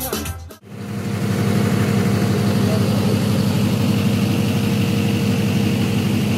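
Background music cuts off about half a second in, then an engine idles steadily with a low rumble and a faint high whine.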